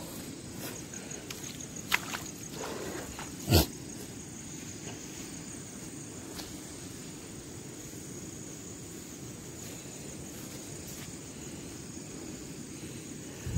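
Night insects, crickets, trilling steadily at a high pitch over a jungle night, with faint footsteps through undergrowth. A single sharp knock about three and a half seconds in is the loudest sound.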